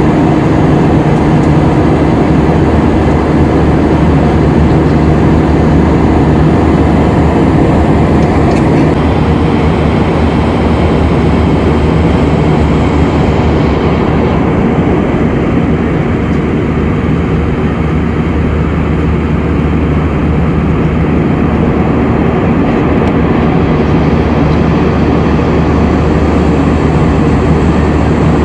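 Airbus A319 cabin noise in flight: a steady, loud drone of jet engines and rushing air. A low hum drops out about nine seconds in, and the hiss softens a few seconds later.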